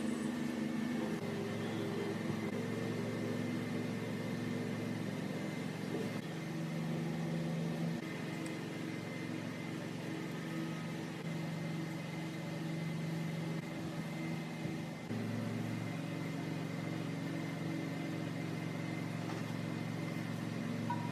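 A motor running with a steady hum, its pitch jumping abruptly to a new steady level every few seconds.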